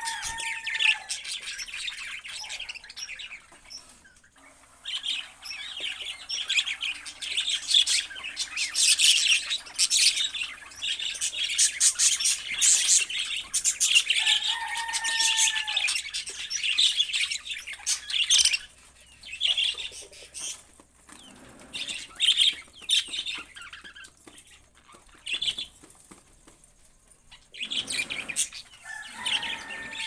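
A flock of budgerigars chattering and chirping in quick, busy bursts, with a few louder squawking calls near the start and about halfway through; the chatter thins out into scattered chirps in the second half.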